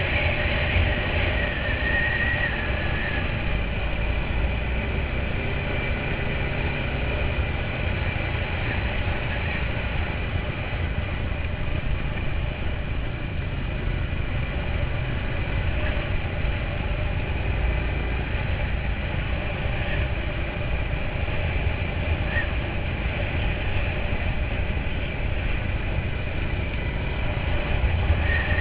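Quad bike (ATV) engine running steadily under way over gravel and dirt track, with road rumble and wind buffeting on the microphone mounted on the machine.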